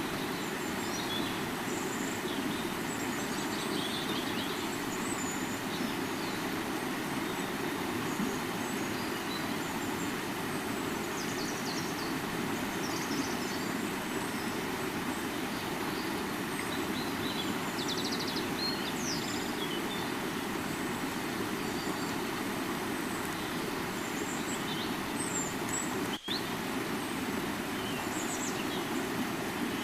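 Steady rushing of a flowing river, with small bird chirps scattered throughout. The sound cuts out for an instant near the end.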